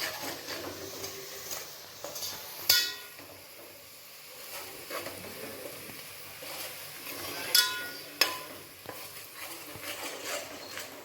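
Onion, garlic and powdered masala frying in oil in a pot while being stirred with a metal spoon: a low sizzle with a few sharp ringing clinks of the spoon against the pot, about three seconds in and twice near eight seconds.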